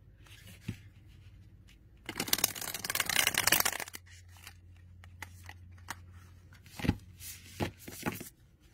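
Tarot cards of thin, easily bent cardstock being riffle-shuffled: a rapid flutter of cards snapping down together for about two seconds, starting about two seconds in. A few single card clicks follow near the end as the deck is bridged and handled.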